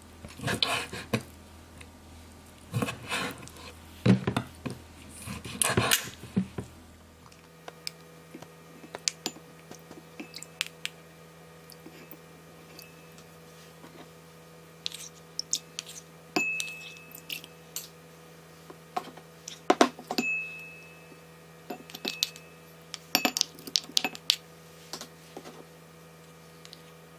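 Kitchen knife cutting baby octopus on a wooden cutting board, several sharp strokes in the first seven seconds. Then metal spoons clink and scrape against a small ceramic bowl as sauce ingredients are spooned in, a few strikes leaving a short ring from the bowl.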